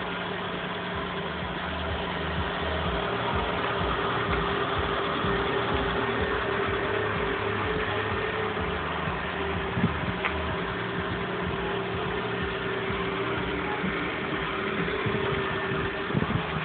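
Renault Wind roadster's engine idling steadily.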